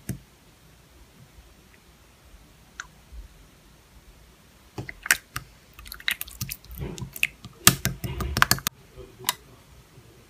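Slime being pressed and squished by hand, giving sticky clicking and popping crackles. The first half is mostly quiet with a few faint ticks; the clicks come in dense clusters from about five seconds in.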